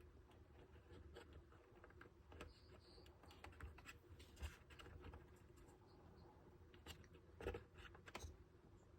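Near silence with faint, irregular taps, clicks and light scratches from small model parts being handled, a little louder about halfway through and again near the end, over a faint steady hum.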